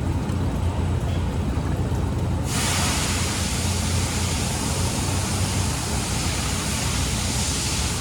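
Washer fluid being filled into the windshield washer reservoir: a steady hiss of flowing fluid that starts abruptly about two and a half seconds in and runs on, over a steady low hum.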